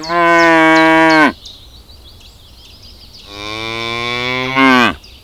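Cow mooing twice: a long moo of about a second, then after a pause of about two seconds a second, lower-pitched moo that bends down in pitch as it ends.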